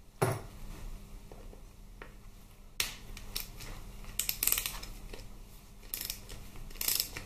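A sharp knock just after the start, then scattered light metal clicks and clinks as a hex key is fitted to and worked on the Allen head bolts of a Harley-Davidson Twin Cam 88 engine case.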